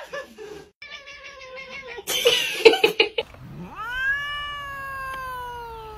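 A short noisy burst, then a long-haired cat giving one long, drawn-out meow that rises quickly and then slides slowly down in pitch.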